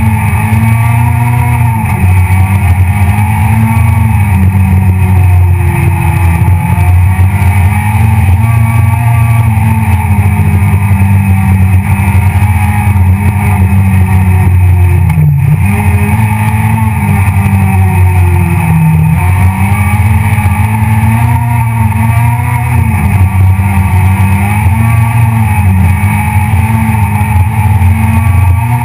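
Citroën C2 R2 Max rally car's four-cylinder engine, heard loud from inside the cabin at stage pace. It revs up and drops back over and over as the driver shifts gears and lifts off.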